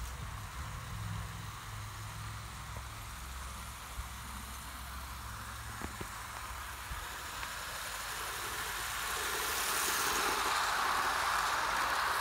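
Model BR 2-8-0 locomotive and its eight coaches running on garden railway track, the wheels rolling on the rails as a steady rumble that grows louder about eight seconds in as the train comes close. A low steady hum sits underneath until about seven seconds in.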